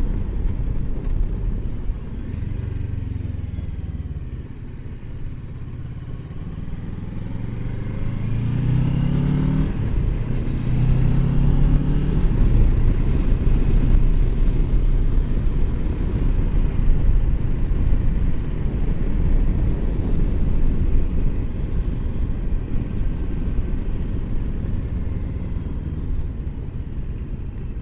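Kawasaki Versys 650 parallel-twin engine pulling away, its pitch rising, dropping at an upshift about ten seconds in and rising again, then holding a steady cruise under a dense rush of road and wind noise.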